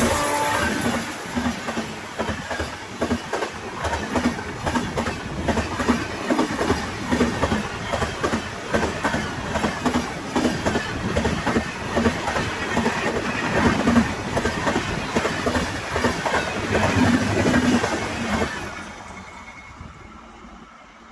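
Passenger train coaches passing close by at speed, wheels clattering over the rail joints in a steady, rapid rhythm. Near the end the clatter drops away sharply as the last coach goes by.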